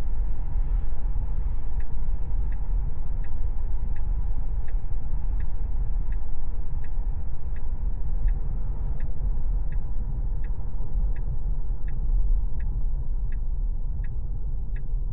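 Steady road and tyre rumble inside a Tesla's cabin while it drives. From about two seconds in, the turn signal ticks evenly, about one and a half ticks a second.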